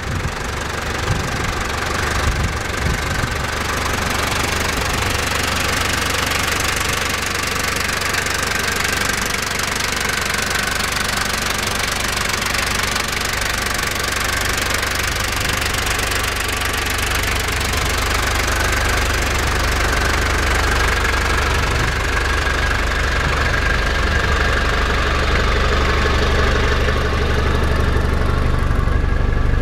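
Toyota Land Cruiser diesel engine idling steadily, its recently replaced motor running throughout. It sounds duller near the end, heard from inside the cab.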